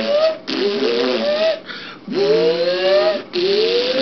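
A performer's voice making about three drawn-out, wordless rising wails, each about a second long, as the time machine sets off after a countdown.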